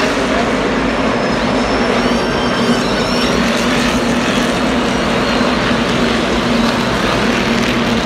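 Many NASCAR Cup stock cars' V8 engines running at low pit-road speed, a loud, steady drone that holds one pitch.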